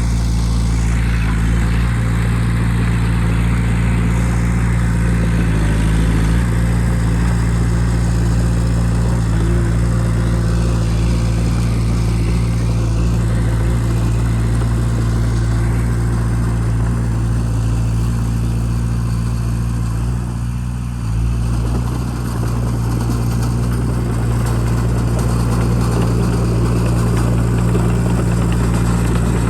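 Bulldozer's diesel engine running steadily at a constant low pitch, with a short drop in level about twenty seconds in before it picks back up.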